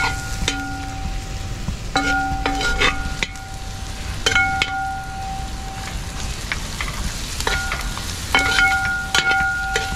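Onions, shallots and chopped ginger sizzling in coconut oil in an uruli while a spoon stirs them, knocking and scraping against the vessel in several bursts. Each knock sets the vessel ringing briefly.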